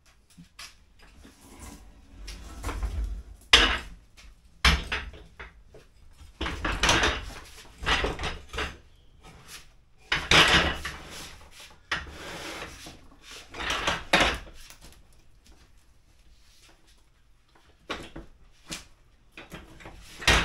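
Heavy angle-iron miter saw stand being wrestled up steps: repeated scraping and dragging with several sharp knocks as the frame bumps.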